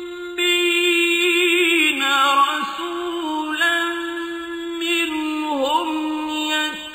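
A male voice reciting the Quran in a melodic, chanted style, with long held notes and ornamented turns in pitch. A new phrase begins about half a second in, after a short breath.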